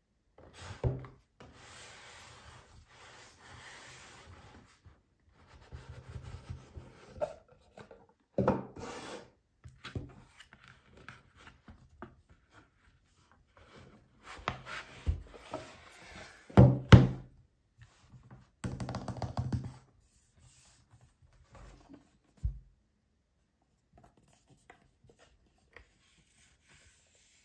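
Cardboard watch box being handled and opened: stretches of rubbing and scraping as the box slides out of its sleeve, with a few knocks against a wooden table, the loudest about two-thirds of the way through.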